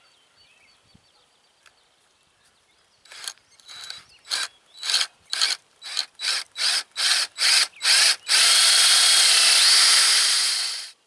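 Power drill boring a hole into the end grain of a black walnut handle. About ten short trigger pulses come closer and closer together, then the drill runs steadily for about three seconds and stops abruptly near the end.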